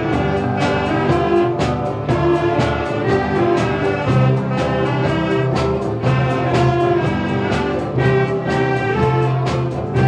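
A children's wind band playing a piece, clarinets and saxophones with a drum kit marking the beat.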